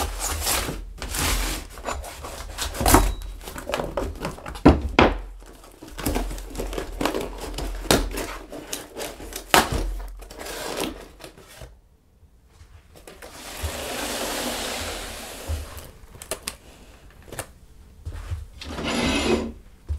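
A cardboard parcel being opened: a hatchet blade scrapes and slices through the packing tape with many short knocks and scrapes, then the cardboard flaps rustle as they are pulled open. A few seconds of steady rasping come a little past the middle.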